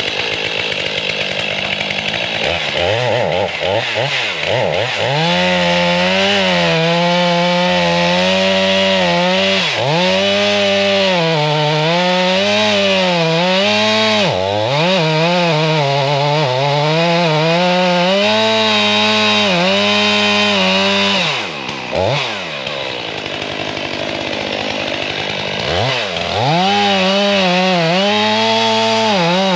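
Gas chainsaw cutting into a tree, running near full throttle with its engine pitch sagging and recovering again and again under the load of the cut. It drops off briefly about twenty-one seconds in, then revs back up a few seconds later.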